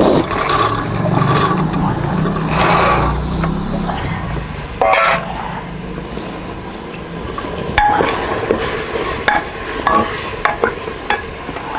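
Boiled black chickpeas tipped by hand into frying masala in a metal pressure cooker, then stirred in with a steel ladle that scrapes the pot. Sharp clinks of ladle on metal come through from about eight seconds in.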